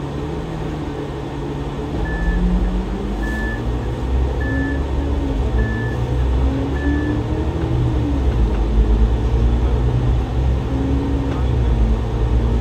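A bus's diesel engine heard from inside the bus as it pulls away from a standstill, its pitch climbing and dropping back with each automatic gearshift as it gathers speed. Five short high beeps sound at even spacing, about a second apart, in the first half.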